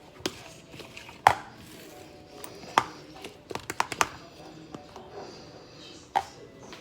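Irregular sharp taps and clicks as crackers and small food items are handled and set down on a serving board, the loudest about a second in, a quick run of clicks around the middle and one more near the end.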